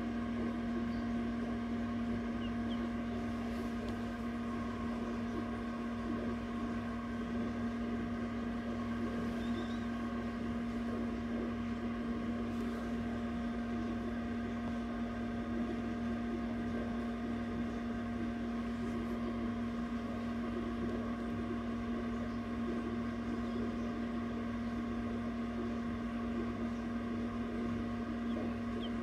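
Egg incubator's fan motor humming steadily, a low even drone with a single strong tone.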